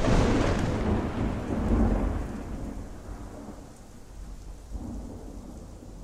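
Thunderclap over rain, as a stage sound effect: a sudden loud crack that rolls and fades over a few seconds, with a smaller rumble about five seconds in and steady rain beneath.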